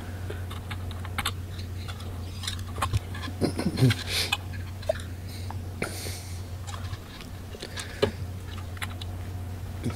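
Hands handling the plastic shell and wiring of a Hubsan Zino 2 drone on a silicone work mat: scattered small clicks and rustles over a steady low hum, with a brief low murmur about three and a half seconds in.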